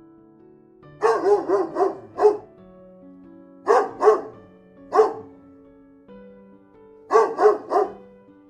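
A dog barking in three quick bursts of several barks each, about a second in, around four seconds in and near the end.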